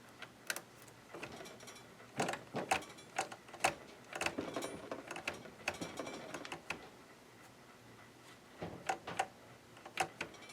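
Irregular clicks, knocks and short rattles of an opened Janome ME4014 sewing machine's mechanism being handled and turned by hand, with the motor not running. The clicks come in scattered clusters with a brief lull near the middle.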